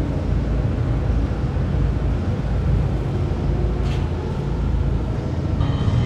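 Steady low mechanical rumble, with a short squirt from a squeeze bottle of sauce about four seconds in. Music comes in near the end.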